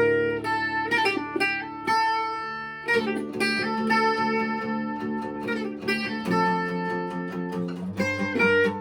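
Background music led by a plucked guitar, notes picked one after another over sustained chords.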